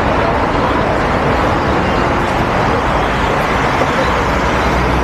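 Steady road traffic noise of a busy city avenue, with cars and buses running past.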